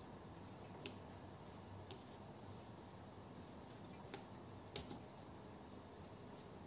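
A few light, sharp clicks of a pen-spinning mod pen knocking against the fingers as it is spun and caught, four in all, the loudest about three-quarters of the way through, over a faint steady hiss.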